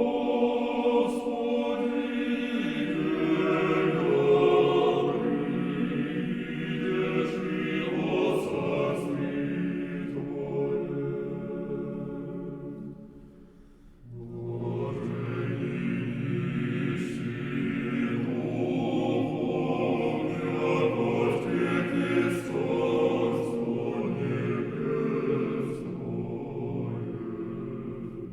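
Background music: a choir singing a slow chant in sustained, held notes. The singing fades to a short pause about halfway through, then a new phrase begins.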